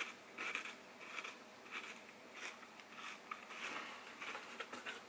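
Faint, close-miked mouth sounds of a person eating an icy sugar-free popsicle: soft, irregular chewing and sucking smacks, a few each second.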